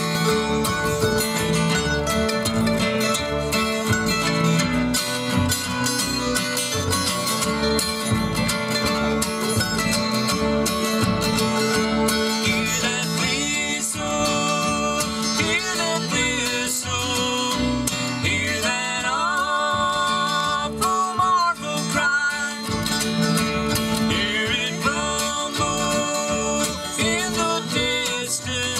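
Bluegrass band playing live on five-string banjo, acoustic guitar, mandolin and upright bass. About twelve seconds in, a higher melody with sliding notes joins.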